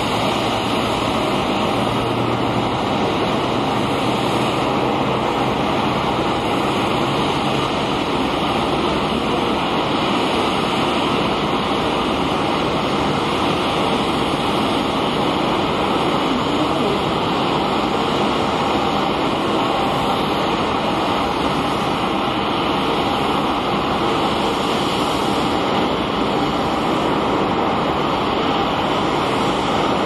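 Steady, even rushing noise of airport ambience at an airliner apron, with no distinct events.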